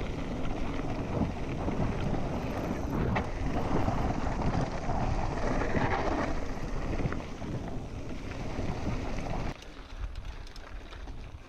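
Wind rushing over the microphone and mountain bike tyres rolling fast over a loose dirt and gravel trail, with an occasional knock from bumps. The noise drops sharply near the end.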